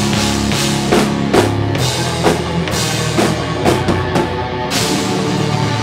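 Heavy metal band playing live: electric guitar and bass holding a low riff over a drum kit, with repeated drum hits and cymbal crashes and no vocals.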